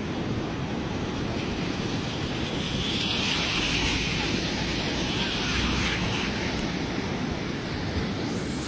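Rushing water of a muddy flash-flood river in spate, heard as a steady noisy rush mixed with wind buffeting the microphone. The hiss swells for a few seconds in the middle.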